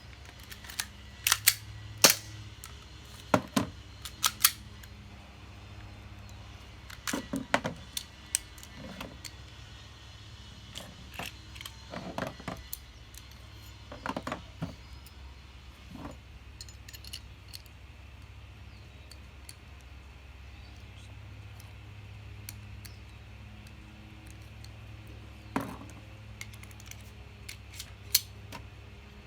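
Airsoft Glock 17 gas pistol being taken apart and put back together by hand: sharp clicks and clacks of its parts being handled and fitted. They come in uneven clusters, busiest in the first half, with a few single sharp clicks later on.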